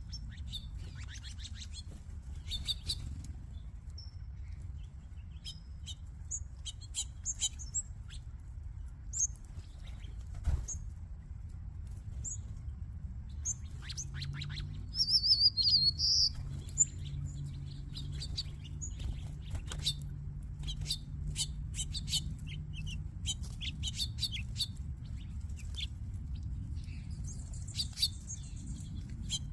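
A flock of small feeding birds chirping and twittering in many short calls, with one louder call about halfway through, over a low steady background rumble.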